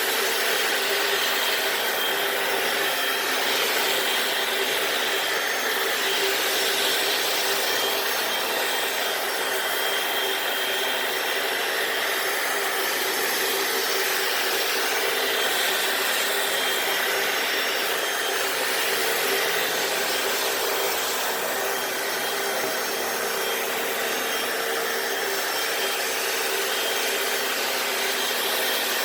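Hoover FloorMate wet floor cleaner running steadily, its motor and suction going as the brush scrubs and sucks up water from the garage floor.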